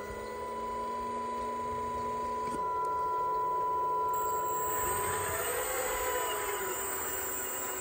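A 1/8-scale RC hydraulic excavator's electric hydraulic pump and valves whining steadily as it works, the pitch stepping down about two and a half seconds in. About halfway through a louder, wavering whine joins as further hydraulic functions move the machine.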